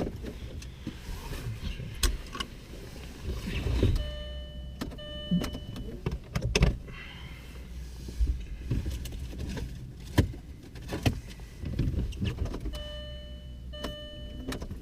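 Inside a car that will not start: scattered clicks and knocks from handling the car's controls over a low steady hum, with a steady electronic tone sounding in two stretches, about four seconds in and again near the end.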